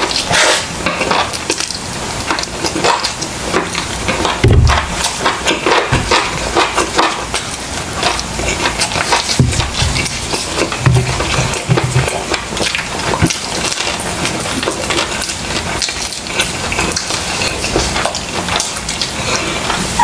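Close-miked chewing and lip-smacking on a mouthful of grilled chicken leg: a steady, dense run of wet clicks and smacks.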